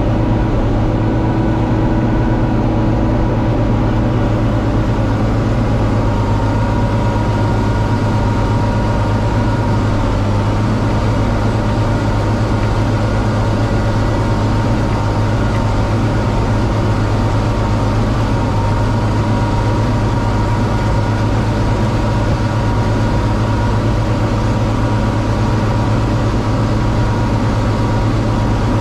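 Steady drone of a John Deere 4250 tractor's diesel engine pulling a working Kuhn VB 3155 round baler.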